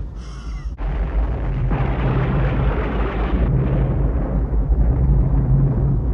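A brief high squeak, then a loud, deep rumbling noise effect that starts about a second in, swells a moment later and runs on with a short dip past the midpoint, over a steady low hum.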